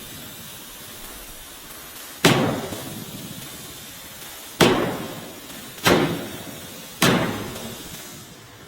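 Four sharp bangs, each ringing out and fading over a second or so, the first about two seconds in and the last three about a second apart.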